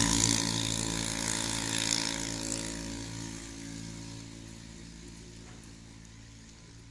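An engine running at a steady pitch, fading away evenly over several seconds until it is faint.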